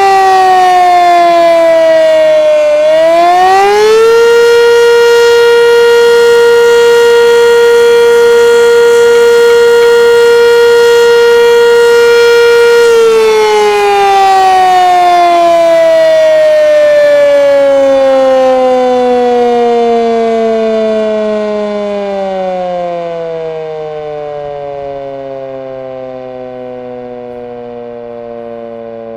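Sentry 3V8 electromechanical siren sounding a test. Its pitch falls, then climbs back up about three seconds in and holds one steady tone for about nine seconds. It then winds down in a long falling glide that grows fainter toward the end.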